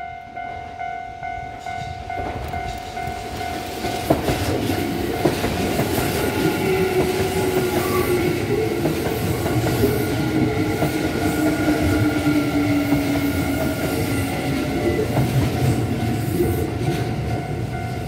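Kintetsu 50000 series electric limited express train passing close by, its wheels clattering over the rail joints. The sound builds from about four seconds in and eases near the end. A level crossing warning bell rings steadily throughout.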